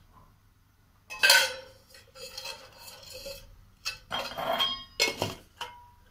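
Steel kitchen utensils and pots being handled: a sudden clatter about a second in, then a string of knocks and clinks.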